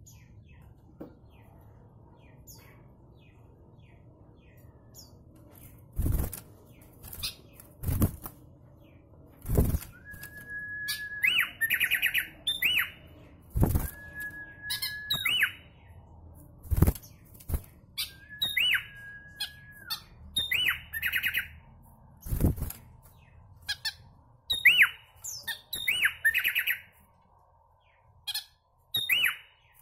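Caged sooty-headed bulbul starting up after about six seconds of quiet, singing about five repeated phrases. Each phrase is a held whistle followed by a rapid, higher trill, a song billed as sounding like a magpie robin's. Short, loud wing flutters and thumps come in between as the bird moves about the cage.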